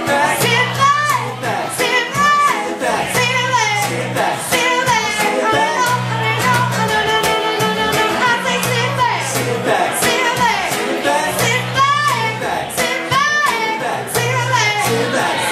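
Live acoustic song: a woman singing lead with vibrato over a strummed acoustic guitar.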